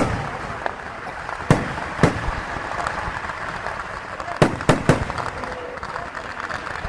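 Fireworks going off: loud, sharp bangs at irregular intervals, two about a second and a half to two seconds in and a quick run of three around four and a half seconds, with smaller pops between.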